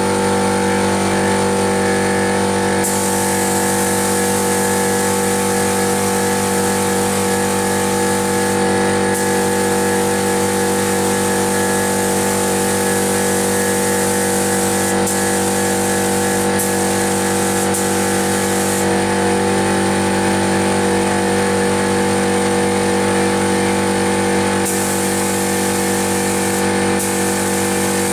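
Air spray gun hissing as paint is sprayed in passes, the hiss stopping and starting several times, over the steady drone of a running air compressor.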